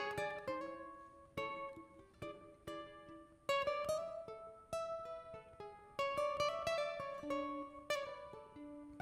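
Braguinha, the small steel-strung Madeiran cousin of the ukulele, played solo: a melody of single plucked notes that ring and fade, with louder strummed chords about three and a half and six seconds in.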